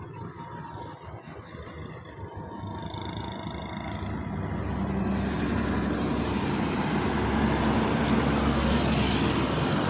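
Heavy truck's diesel engine idling with a steady low hum, which grows louder and rougher from about halfway through.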